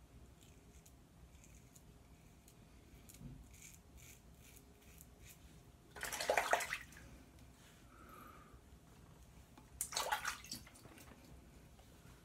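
Faint scratchy strokes of a Merkur Progress double-edge safety razor scraping through lathered stubble, then two short bursts of splashing water, about six and ten seconds in, as the razor is rinsed in the sink.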